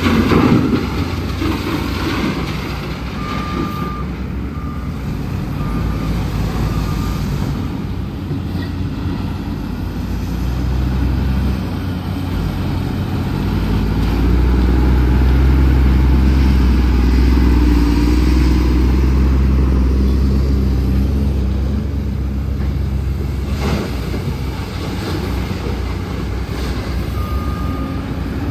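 Heavy truck's diesel engine running, growing louder and pulling hard for several seconds in the middle. A reversing alarm gives short beeps a few seconds in and again near the end, and there is a short loud noise at the very start.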